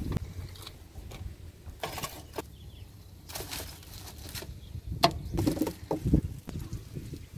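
Utensil sounds at a deep-frying stall: scattered knocks and clinks of a metal wire skimmer and steel pots, with a few short noisy bursts over faint sizzling of bhajis in hot oil.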